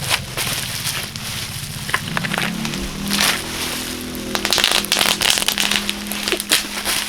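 Bubble wrap crackling and popping under thick rubber-gloved hands, in irregular runs of sharp pops with a few louder ones, over background music.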